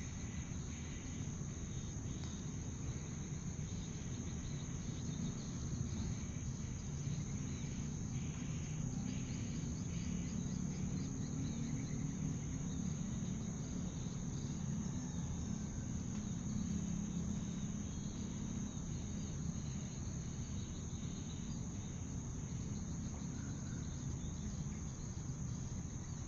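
Insects, crickets or the like, chirring steadily in one continuous high trill, over a low rumble.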